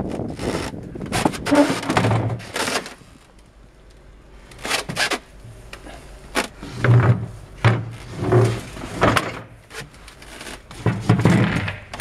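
A series of knocks and hollow thumps as a boat's deck hatch lid is handled and opened, mixed with footsteps on wooden deck boards. The heaviest thuds come about seven to eight and a half seconds in and again near the end.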